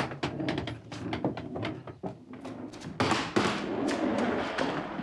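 Quick footsteps and high-heel clicks, then, about three seconds in, a child's small wheeled suitcase rolling across a hardwood floor with a steady rumbling hiss.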